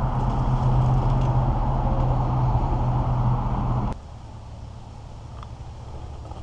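Steady engine drone with road noise, cutting off abruptly about four seconds in to a quieter background hiss.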